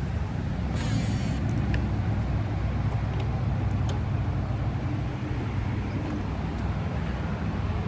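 Steady low rumble of a motor vehicle running, with a brief hiss about a second in.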